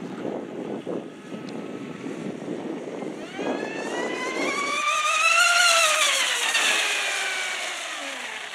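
Electric RC speedboat, a TFL 3660 2700kv brushless motor on 6S driving an Octura X442 propeller, running at high speed. It makes a high whine that rises in pitch and loudness to a peak about five to six seconds in, then falls in pitch and fades as the boat runs away. Low rumbling noise comes before the whine sets in.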